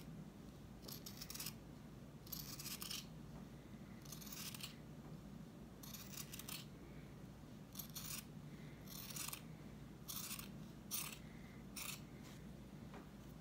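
Scissors cutting a strip of green felt: about ten short snips, spaced irregularly a second or so apart, as the felt is trimmed narrower.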